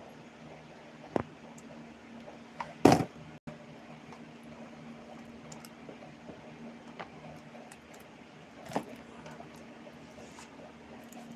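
A steady low hum with three sharp knocks or clatters; the loudest comes about three seconds in.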